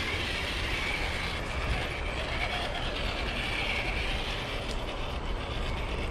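Axial SCX10 II RC crawler's stock brushed motor and geared drivetrain whining as the truck crawls over trail obstacles, the whine swelling and fading with the throttle.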